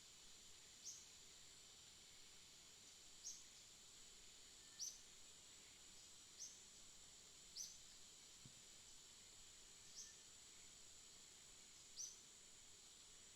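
Faint short high chirps from a bird, seven in all, spaced a second or two apart, over a steady high hiss.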